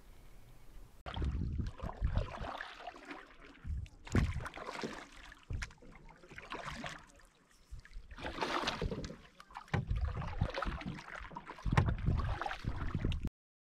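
Canoe paddling: irregular surges of water splashing from paddle strokes, with low gusts of wind buffeting the microphone. The sound starts abruptly about a second in and cuts off suddenly near the end.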